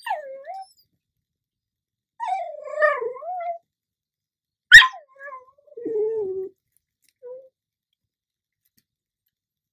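A begging dog 'talking': several drawn-out, whining, yowl-like vocalisations that slide up and down in pitch, the longest about two seconds in. About halfway through comes one sharp, sudden knock, the loudest sound.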